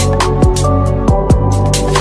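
Electronic background music with a beat of sharp percussive hits over sustained bass, and notes that swoop down in pitch.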